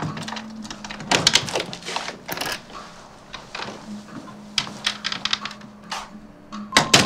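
Irregular clusters of sharp clicks and crinkly rustles, like small objects or packaging being handled, over a faint steady low hum.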